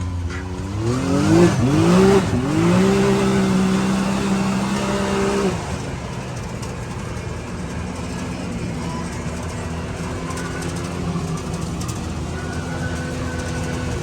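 Can-Am Maverick X3 Max's turbocharged three-cylinder engine accelerating: its pitch climbs twice in quick succession about a second in and holds high for a few seconds, then drops back to a lower, steady run as the throttle eases off.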